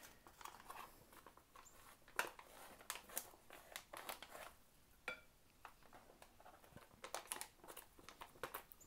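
Faint crinkling of a freeze-dried food pouch as rehydrated scrambled eggs are spooned out of it onto a plate, with scattered light scrapes and taps of the spoon and a short clink about five seconds in.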